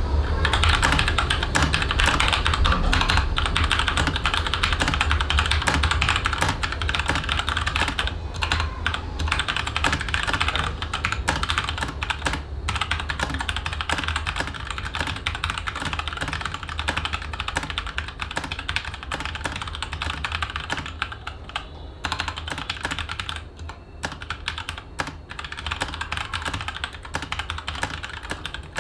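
Continuous fast typing on a stock mechanical keyboard with tactile brown switches: a dense, irregular run of keystroke clicks and key bottom-outs. The typing grows somewhat quieter in the last few seconds.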